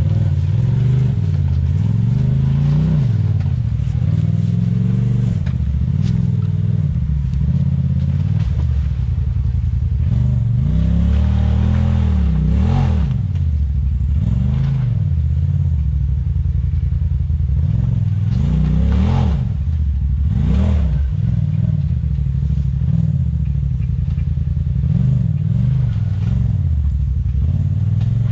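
Side-by-side UTV engine working at low speed over rock, revving up and dropping back several times: notably about two seconds in, around twelve seconds, around twenty seconds and near the end.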